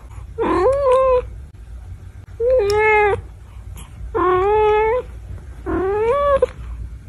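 Domestic cat meowing four times, each meow a drawn-out call of under a second that rises at the start and then holds, with pauses of about a second between them.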